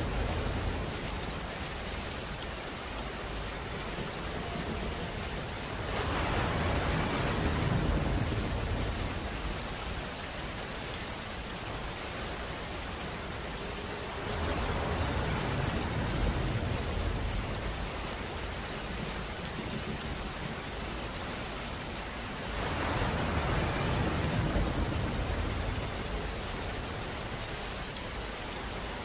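Steady rain with an even hiss, swelling louder in waves about every eight seconds.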